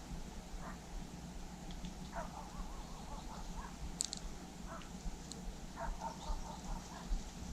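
Bird calls, a few short wavering calls with a couple of brief high chirps, over a low steady background.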